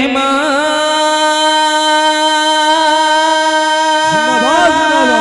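A man singing a naat into a microphone over a PA system with an echo effect. He holds one long steady note for most of the stretch, and the melody starts moving again about four seconds in.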